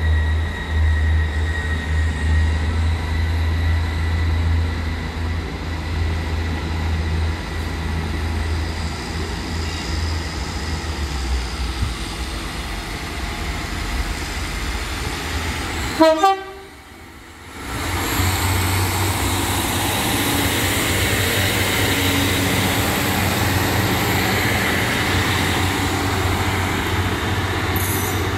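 Trains at a station platform: first a train standing with a deep, heavy rumble and a steady whine. After a sudden break a little over halfway through, a train runs past with a loud, even rushing noise.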